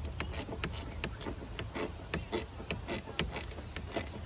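Irregular metallic clicking and tapping, several clicks a second, from hand tools working on the car's battery connections, over a low steady hum.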